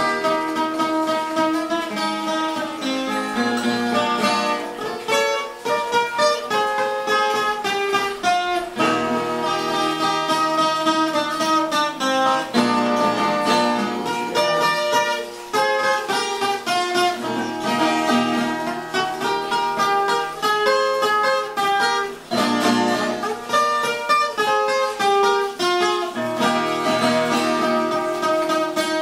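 Background music played on acoustic guitar, a run of changing plucked notes.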